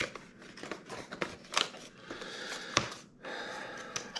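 Small cardboard box being opened by hand: the end flap pulled open and the inner cardboard tray slid out, with scraping and rustling and a few sharp clicks, the sharpest near three seconds in.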